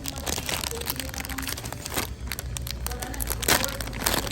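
Packaging being handled and opened: irregular crinkling and crackling with sharp clicks, as in unboxing a phone case.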